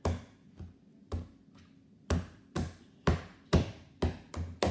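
Hand slapping a lump of homemade fluffy slime down onto a wooden tabletop again and again. The slaps are sharp with a dull thump, about two a second and unevenly spaced, with a short pause in the first half.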